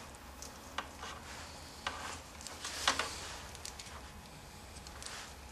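Vinyl electrical tape being handled and peeled off its roll: a faint rasp with a few short crackles and ticks about a second apart, the loudest about three seconds in.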